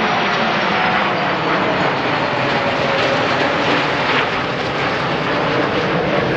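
Aircraft engine noise: a loud, steady rush with a faint whine slowly falling in pitch.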